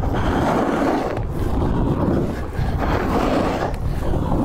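Snowboard carving on a groomed piste: the board's edge scraping the snow in repeated swells, with wind rushing over the microphone.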